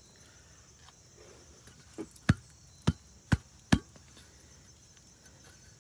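Five sharp knocks within about two seconds, starting about two seconds in: a corroded aluminum coolant housing off a Detroit Diesel 6-71 being knocked to shake loose corrosion chunks out of it.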